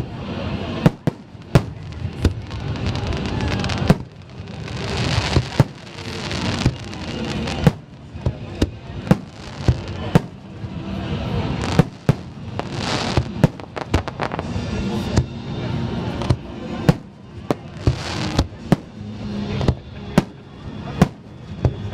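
Aerial fireworks shells bursting in quick succession: sharp bangs about twice a second, with several longer spells of crackle as the shells open.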